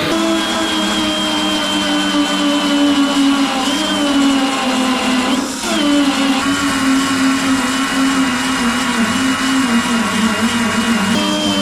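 High-speed power tool motor running steadily with a high whine, its pitch sagging and briefly breaking about halfway through as it takes load on the sheet metal.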